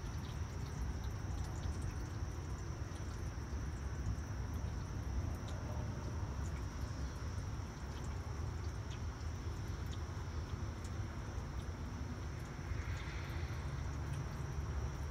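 Quiet outdoor ambience at the tail of a thunderstorm: a steady low rumble, scattered faint ticks like dripping water, and a thin steady high tone.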